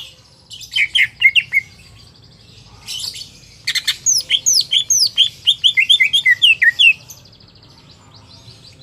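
Cucak ijo (green leafbird) singing: fast runs of short, sharp, falling whistled notes, a brief burst about a second in and a longer run from about four to seven seconds.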